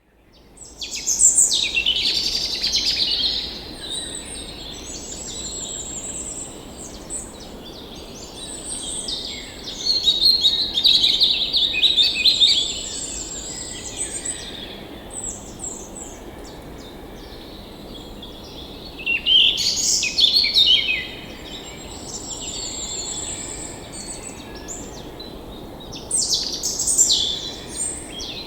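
Songbirds singing and chirping in loud clusters every several seconds, with high thin trills between them, over a steady soft rushing noise.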